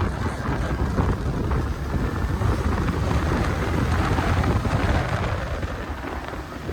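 Wind buffeting the microphone over the low, steady rumble of a moving motorcycle.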